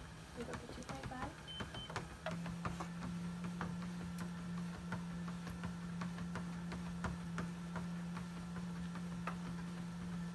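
Treadmill motor humming steadily under the running belt, with the light, irregular ticking of a husky's claws and pads as it walks on the belt. A short beep sounds near the start, and the hum grows louder about two seconds in.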